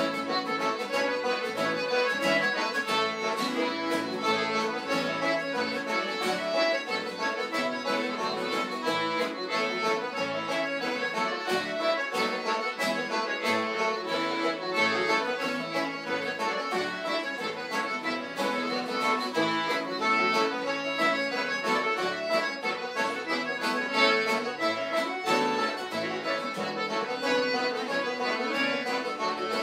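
Live traditional music played as a group session, led by an accordion playing a tune with a steady beat.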